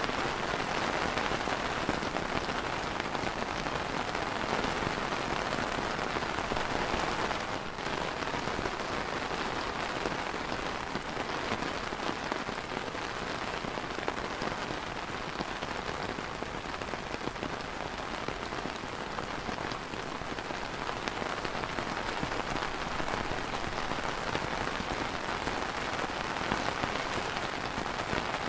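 Steady rain falling on a clear plastic umbrella canopy: an even, dense hiss of many drops, which dips briefly about seven and a half seconds in.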